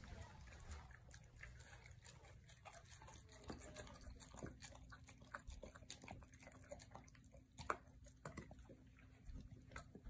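Cane Corso eating wet food from a stainless steel bowl: faint wet chewing and smacking with scattered small clicks, one a little louder about three-quarters of the way through.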